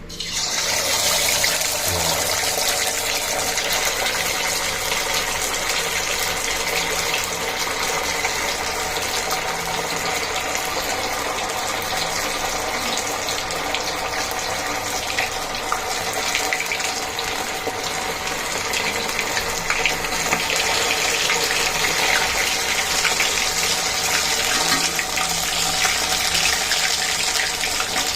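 Masala-coated chicken pieces deep-frying in hot oil in a heavy iron kadai. A loud, dense sizzle with fine crackling starts suddenly as the first piece drops in, then holds steady.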